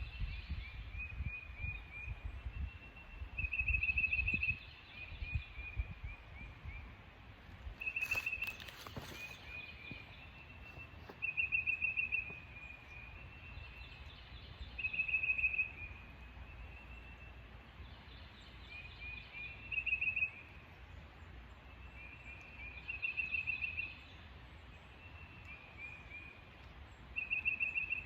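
A songbird singing the same short, rapid phrase over and over, about every four seconds, each followed by a few softer notes. About eight seconds in there is one sharp noise.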